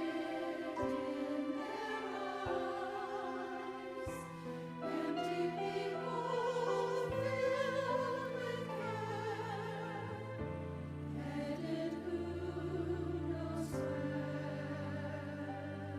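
A church choir singing a sacred anthem in full voice, with vibrato, over instrumental accompaniment whose sustained bass notes come in about four seconds in and step to new pitches.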